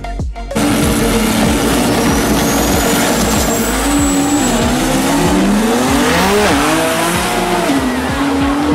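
All-wheel-drive drag race car running hard down the strip, loud from about half a second in. The engine note climbs and drops several times around the middle of the run as it shifts up through the gears, with tyre and wind noise underneath.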